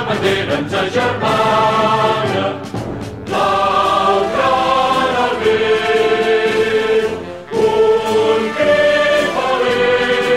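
Choral music: a choir singing long held chords that change every second or two.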